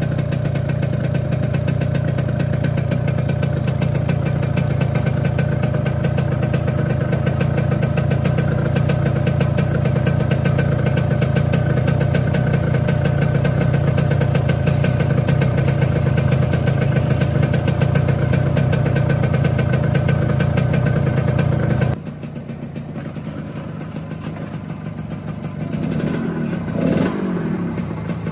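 Yamaha RX-King's single-cylinder two-stroke engine running with a deep, raspy 'ngorok' (snoring) exhaust note, freshly ported and bored oversize with a new ngorok exhaust filter fitted; the growl is described as excellent. About three-quarters of the way through it suddenly drops quieter, and near the end the pitch briefly sweeps up and down like a short blip of the throttle.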